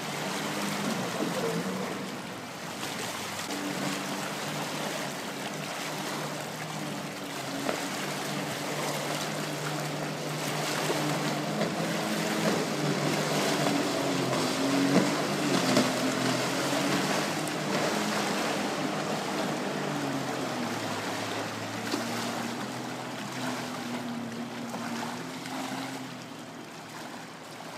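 Jet ski engine running hard out on the water, its note wavering and then dropping in pitch about two-thirds of the way through as it passes, over a steady rush of water and wind. The engine fades near the end.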